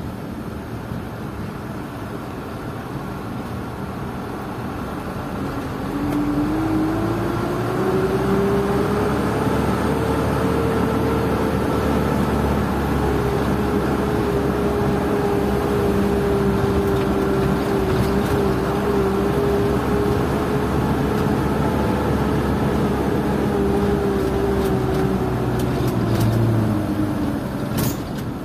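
Isuzu Elf NKR71 truck's four-cylinder diesel engine heard from inside the cab while driving. About six seconds in it picks up, its drone rising in pitch and getting louder, holds steady for some twenty seconds, then eases off near the end.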